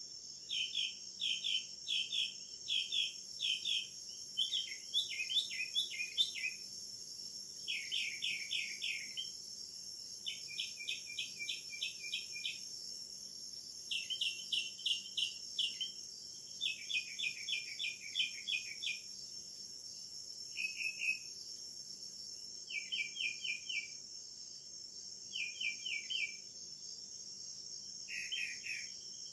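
A steady, high-pitched insect chorus, with a bird singing short phrases of rapidly repeated notes over it, a new phrase every second or two.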